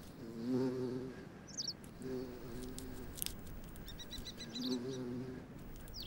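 A dove cooing three times in drawn-out phrases, with small birds chirping high above it and a quick run of chirps about four seconds in.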